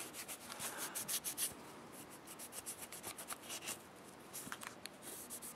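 Cloth rag wiping and rubbing over the frame and trigger guard of a Smith & Wesson 360SC revolver, a run of faint, quick scratchy strokes as dirt is cleaned from around the trigger guard.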